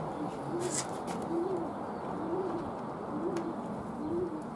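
Domestic pigeon cooing, a low rising-and-falling coo repeated about once a second, with a few light clicks.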